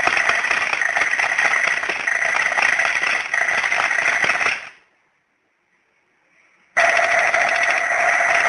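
Bomb-shaped novelty alarm clock's alarm going off with a loud, steady electronic ringing. It cuts off suddenly a little past halfway, is silent for about two seconds, then starts ringing again.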